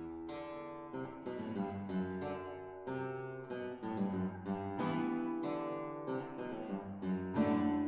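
Two nylon-string classical guitars playing together: plucked notes and chords ringing over one another, with a loud strummed chord near the end.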